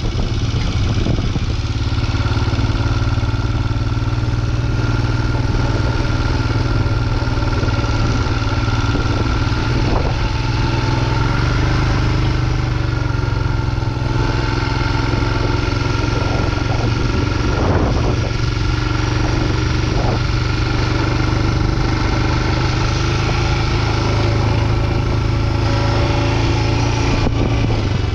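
Royal Enfield Himalayan 411's single-cylinder engine running under way at a fairly steady engine speed, its low note rising and falling slightly in pitch.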